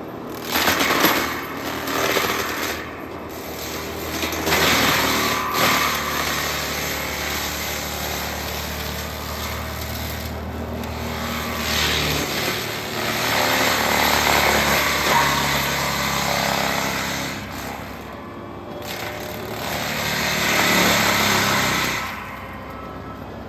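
Denis Cimaf 180Di disc mulcher on a John Deere 333G compact track loader grinding a tree trunk into chips: the loader's diesel engine working hard under load with the rapid chatter of the cutter teeth tearing into wood. It swells and eases several times as the head bites in, and drops back to a steadier running sound near the end.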